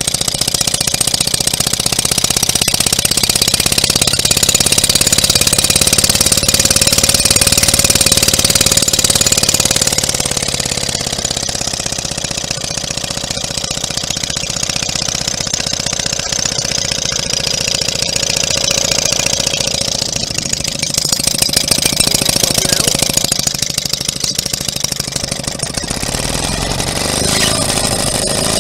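Small vintage two-stroke outboard motor running steadily, a little louder in the first ten seconds or so.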